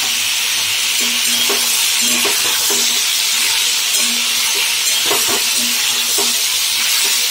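Chunks of potato, aubergine and gourd frying in hot oil in a wok, a steady sizzle, with a metal spatula scraping and knocking against the pan several times as the vegetables are stirred.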